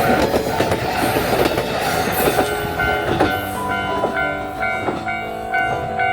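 Wakasa Railway diesel railcar passing close by, its wheels clacking over the rail joints in a run of knocks, loudest in the first few seconds. Background music plays underneath.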